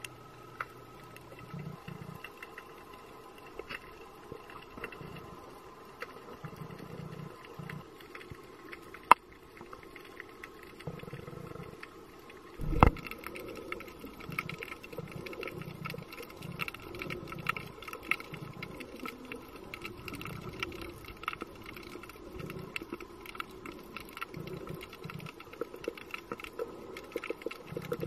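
Underwater sound through a camera housing: a steady crackle of many small clicks with irregular muffled low bumps, and one sharp knock about 13 seconds in.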